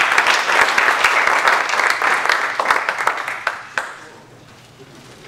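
A small audience clapping, the applause dying away about four seconds in.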